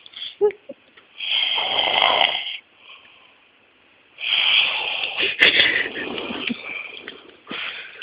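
A man snoring in his sleep: two long snores about three seconds apart, the second longer, with the next one starting near the end.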